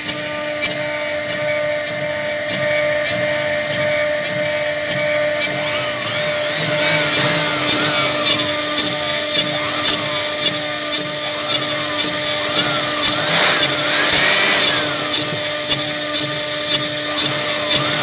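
CNC router running: a steady spindle hum, with the stepper motors' short whines rising and falling in pitch as the axes move back and forth, and regular ticks about one and a half a second. A louder rushing swell comes about two thirds of the way through.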